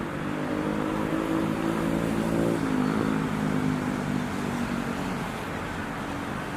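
Diesel locomotive passing close by, its engine running under load, the engine note dropping in pitch about two and a half seconds in as it goes past.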